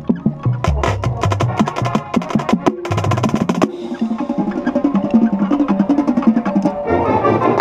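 Marching band playing, heard right at a tuned marching bass drum. For the first few seconds quick drumline strokes and bass-drum notes step through different pitches. Then the band comes in with held chords over the percussion, swelling near the end.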